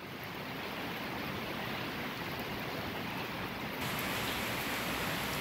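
Light, fine rain falling steadily, a soft even hiss. It gets a little louder and brighter about four seconds in.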